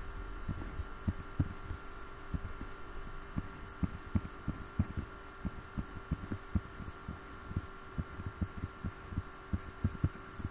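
Irregular soft low thumps, several a second, of a stylus tapping and stroking on a drawing tablet while lines and letters are drawn, over a faint steady electrical hum.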